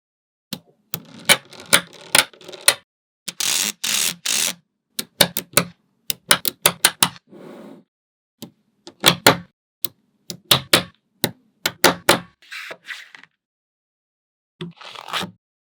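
Small magnetic balls clicking and snapping together in quick, irregular runs of sharp clicks, with a few longer rattling stretches as rows of balls are set down.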